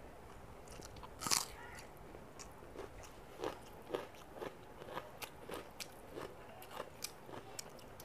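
Close-miked eating sounds: a person chewing a mouthful of rice and curry with scattered small crunches and wet mouth clicks, one louder crunching bite about a second in.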